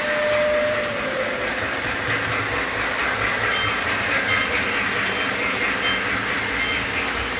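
Model steam locomotive and freight cars running on the layout's track: a steady rolling rumble of small wheels and motor with light clickety-clack. A single held tone sounds in the first second, then fades.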